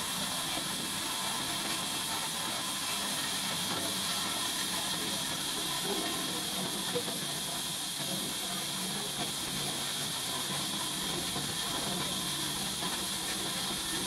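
Sawmill machinery running steadily with no cut being made: a constant hiss with a faint low hum underneath.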